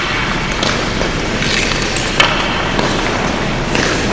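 Ice skate blades scraping across rink ice and hockey sticks knocking on the ice and puck, a string of short scrapes and clacks with a sharp knock about two seconds in, over a steady hiss.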